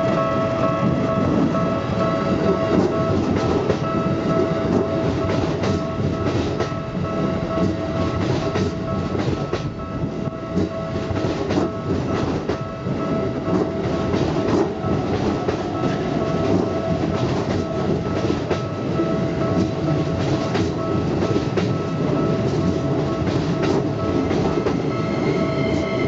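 Keikyu 2100 series electric train running close past a level crossing: a steady rumble with frequent wheel clacks over rail joints. A level-crossing warning bell keeps ringing over it throughout. Near the end a second train is passing on the other track.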